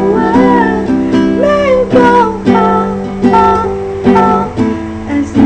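Acoustic guitar strummed in a steady rhythm under a sung vocal holding long notes that slide up and down in pitch.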